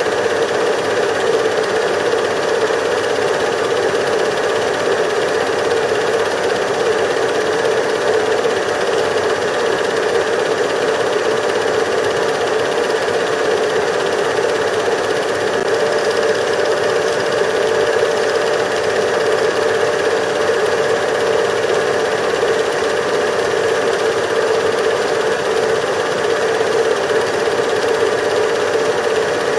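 Steady mechanical whirr with a constant hum, unchanging throughout, typical of a cine film projector running.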